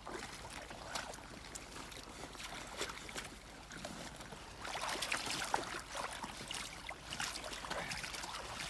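Water splashing and trickling: a steady wash with many small splashes and drips, louder from about halfway.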